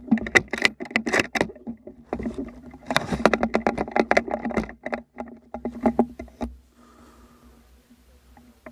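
Close handling noise on a rifle-mounted camera: a rapid jumble of knocks, rubs and rustles as hands shift on the rifle's grip and stock. It stops about six and a half seconds in, leaving a faint steady hum.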